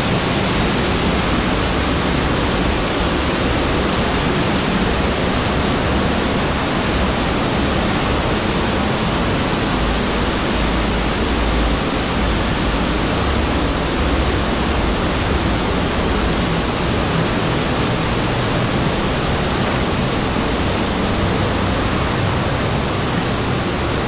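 Steady rush of flowing water in a cave stream passage: a constant, unbroken noise.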